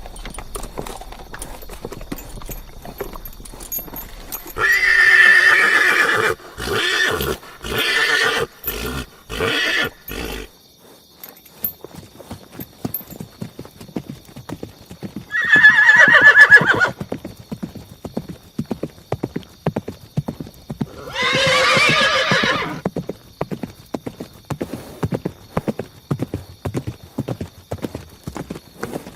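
Horse whinnying three times, the first call trailing off into a shuddering series of pulses, over a steady clip-clop of hooves.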